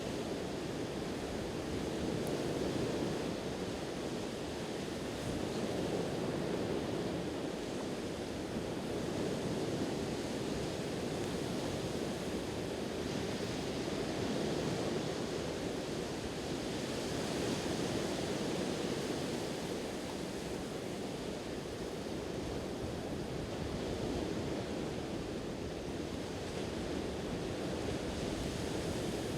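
Sea waves washing onto the shore, a steady rush of surf that swells and eases every few seconds.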